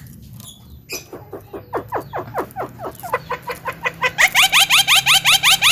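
Javan myna (jalak kebo) calling in a run of short repeated notes. Falling notes at about five a second grow steadily louder, then about four seconds in break into a faster, louder chatter of about seven notes a second.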